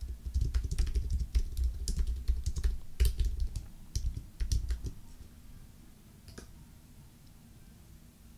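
Computer keyboard typing, a quick run of key presses that stops about five seconds in, followed a little later by one lone click.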